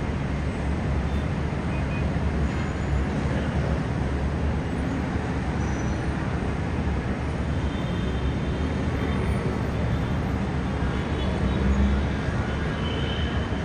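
Steady hum of heavy city road traffic, a dense blend of many engines and tyres with no single vehicle standing out.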